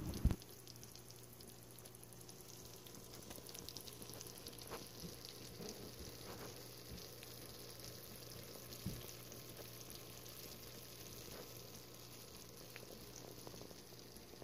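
Faint sizzling and crackling of a cheese-topped baked eggplant and shrimp Alfredo casserole hot from the oven, with a low steady hum beneath.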